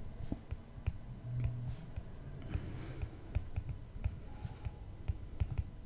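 Soft, irregular clicks and taps of a stylus writing on a tablet screen.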